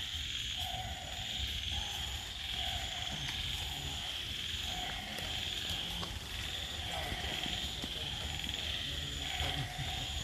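Frogs croaking in forest, short calls repeating about once a second, over a steady high drone.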